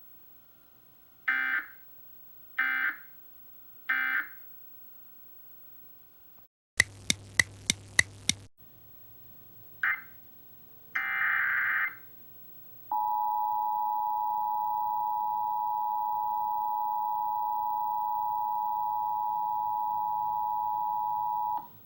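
Emergency Alert System signalling: three short bursts of digital data tones (the end-of-message code), a stretch of crackling static with sharp clicks, and two more short data bursts. Then the steady two-tone EAS attention signal (853 and 960 Hz) holds for about eight seconds and cuts off.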